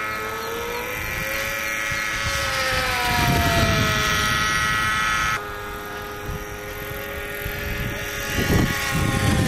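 RC model airplane's engine whining high overhead, its pitch slowly wandering as the plane flies far off. The upper part of the whine cuts off suddenly about five seconds in, and low rumbling bursts come twice.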